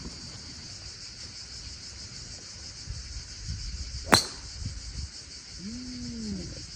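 A golf club striking a ball once, a sharp crack about four seconds in, over a steady high insect chorus. A brief pitched voice sound, rising and falling, comes near the end.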